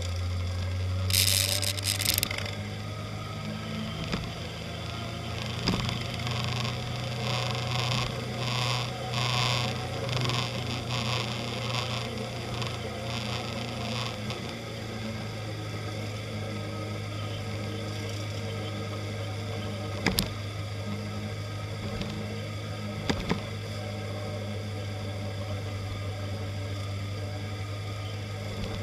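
Onboard sound of a motorcycle riding at steady cruising speed: a steady low engine drone with wind on the microphone. A brief hiss about a second in and a few short knocks in the second half.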